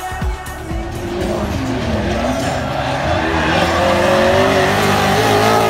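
Drift car sliding sideways: its engine revs up and down, then holds high revs, and the tyres squeal as they spin. A music beat with deep thumps fades out about a second in.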